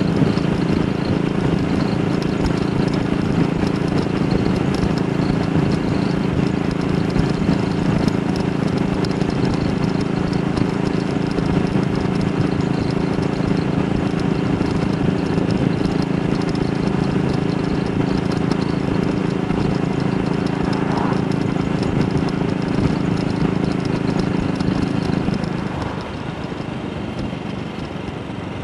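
AJS Model 8 single-cylinder motorcycle engine running steadily under way, with road and wind noise. Near the end the engine note drops away and the overall level falls.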